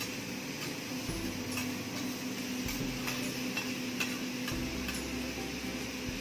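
Metal spatula clicking and scraping on a teppanyaki steel griddle in irregular ticks, over the steady sizzle of vegetables and fried rice cooking and a steady low hum.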